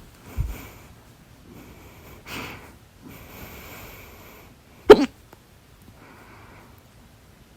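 One loud, sharp hiccup about five seconds in, with softer breathy sounds before it and a low thump just after the start.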